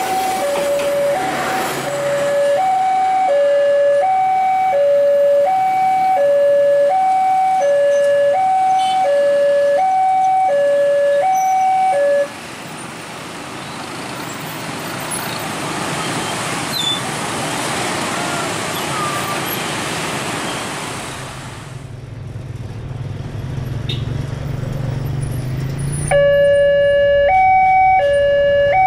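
Electronic two-tone railroad crossing warning alarm, alternating between a high and a low tone about once a second, over the noise of a passenger train running past on the rails. The alarm cuts off about twelve seconds in, leaving the rushing noise of the train moving away and then a low engine hum. The alarm starts again near the end.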